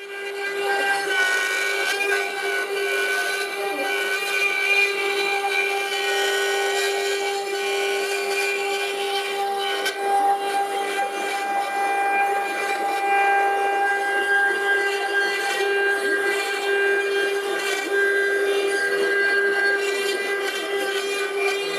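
CNC router spindle whining steadily at one high pitch while its tapered carving bit cuts relief into a wooden furniture part, with cutting noise underneath. The sound fades in at the start.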